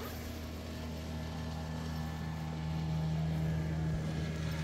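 Steady low engine hum that grows louder about halfway through.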